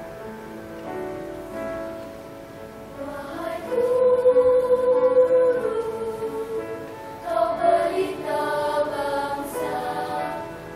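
Children's choir singing: soft at first, then swelling louder about three and a half seconds in, with long held notes.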